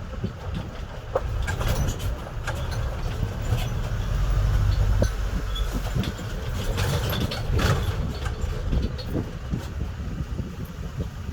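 Vehicle driving over a rough, bad road: a steady low rumble with frequent sharp knocks and rattles.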